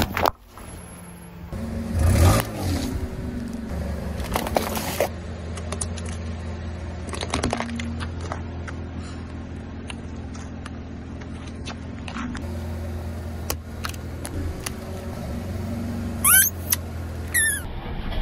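A car creeping forward with its engine running low and steady while its tyre crushes things on asphalt: sudden pops and crunches at the start, about two seconds in and about four and a half seconds in, smaller cracks and clicks between, and two short squeaks near the end.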